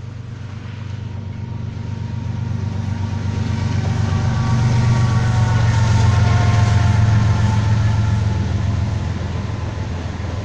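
BNSF freight train passing: a low diesel-locomotive drone that swells to its loudest about six seconds in and then eases off, with a faint higher whine in the middle that drifts slightly down in pitch.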